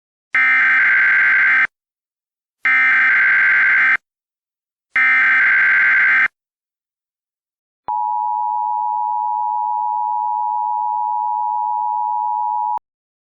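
Emergency Alert System header: three identical bursts of digital data screech, each about a second and a half long, followed by the steady two-tone EAS attention signal held for about five seconds, announcing an alert message.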